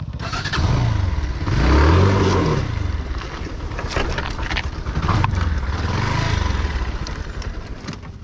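Motorcycle engine revved up and back down twice, about half a second in and again around five seconds in, with scattered clicks and knocks.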